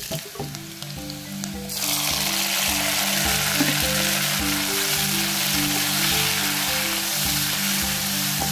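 Sliced onions and tomatoes sizzling in hot oil in an aluminium pot. The sizzle jumps much louder about two seconds in and stays strong. Light background music plays underneath.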